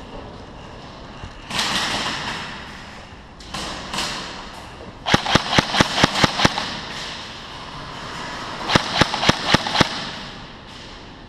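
Airsoft gun firing in two rapid strings of sharp cracks, about ten shots and then, a few seconds later, about seven more, each at roughly seven shots a second. Two short rustling noises come before the first string.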